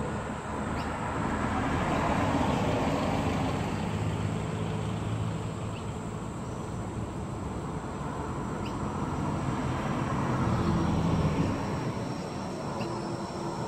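Road traffic passing: a van and then a car drive by on the road, their tyre and engine noise swelling and fading, once a couple of seconds in and again about ten seconds in. Near the end the hum of an approaching tram begins.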